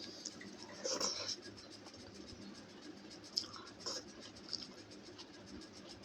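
Close-miked eating sounds from a plate of dal bhat and sides: a short scrape about a second in, then a few sharp clicks and mouth sounds.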